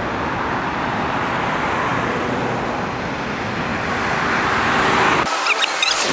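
Steady road traffic: a rush of tyres and engines from cars on a city road, swelling a little about four to five seconds in. The low rumble drops out suddenly just after five seconds, leaving a thinner hiss with a few faint high squeaks.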